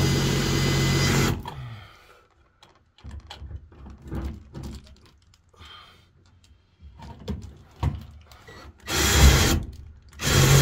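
Power drill-driver spinning a 1.5-inch self-tapping screw, with no pilot hole, through a steel electrical box into the container's corrugated steel wall. It runs in bursts: one at the start lasting about a second and a half, a short one near the end, then another, with small knocks and clicks between.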